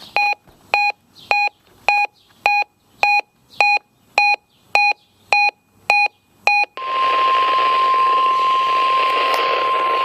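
About a dozen short, high electronic beeps, a little under two a second, from a weather radio receiver's alert beeper. About seven seconds in, the receiver's audio opens onto radio static carrying NOAA Weather Radio's steady 1050 Hz warning alarm tone.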